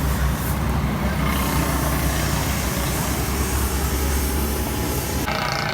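A machine running steadily with a deep low hum under a broad hiss and no separate hammer blows. Near the end the hum drops away and a set of steady higher tones comes in.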